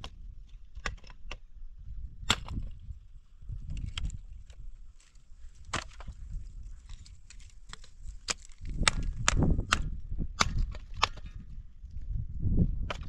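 Dry brushwood snapping and cracking at a small campfire: sharp, irregular cracks, coming thicker in the second half, over a low rumble.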